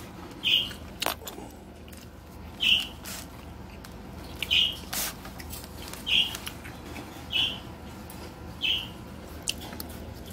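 A small pet chirping in short, high calls about every second and a half, six in all. A few sharp clicks from a plastic fork against a foam takeout container come in between.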